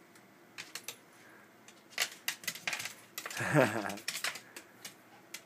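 Irregular sharp clicks and taps on a hard surface, with a brief pitched vocal sound that bends up and down about three and a half seconds in.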